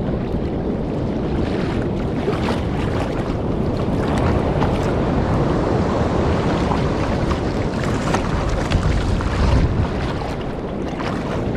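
Surf and water splashing around a fiberglass kayak paddled hard through the waves toward the beach, with wind rushing over the microphone. Short splashes stand out here and there through the steady wash of noise.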